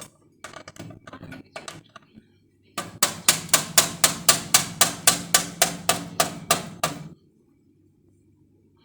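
A quick, even run of about fifteen sharp knocks, roughly four a second, after some softer irregular knocking.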